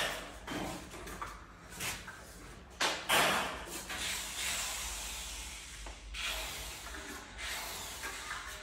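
Steel trowel scraping across decorative plaster on a wall in several long strokes, a steady rasping hiss that starts sharply about three seconds in.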